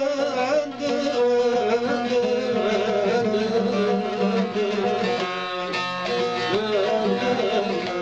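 Instrumental passage of a Turkish folk song (türkü): a bağlama, the long-necked plucked lute of the aşık tradition, carries the melody.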